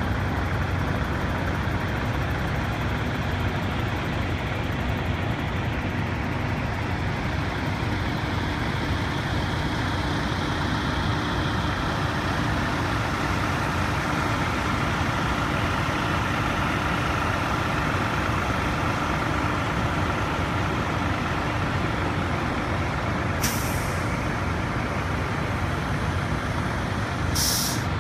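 Diesel truck engines idling steadily, with two short, sharp air-brake hisses late on, about four seconds apart.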